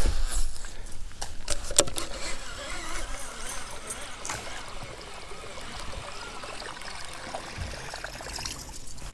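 Buzz bait being cast and retrieved with a baitcasting rod: a few sharp knocks in the first two seconds, then the lure's spinning blade churning and gurgling across the water surface.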